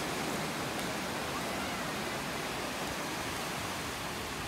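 Steady, even rushing noise of open-beach ambience: surf and wind.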